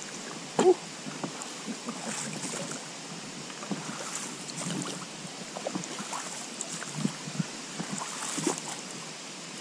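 Quiet on-the-water ambience from an inflatable PVC boat: a steady hiss of water and air with scattered small knocks and rubs of fishing gear against the boat, and one brief louder sound about half a second in.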